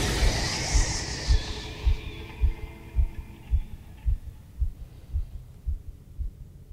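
Film soundtrack: a low, heartbeat-like pulse of bass thumps, about two a second, while the music above it fades out.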